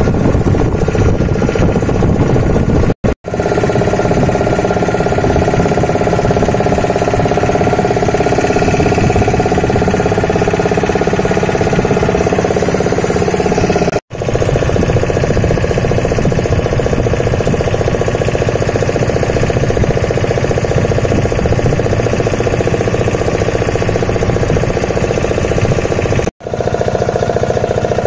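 Motorboat engine running steadily with a rapid knocking beat, broken by three brief dropouts.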